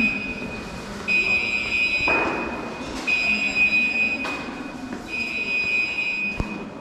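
An electronic buzzer sounding a steady, high-pitched tone in pulses of about two seconds, with short breaks between them. There is a single knock near the end.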